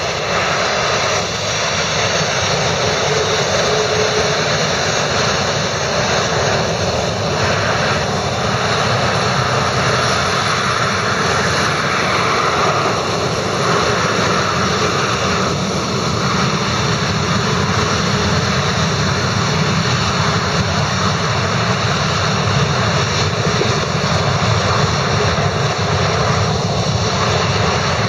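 Boeing 737-400's CFM56 turbofan engines running at low taxi power as the jet lines up on the runway: a steady whine over a broad rushing rumble.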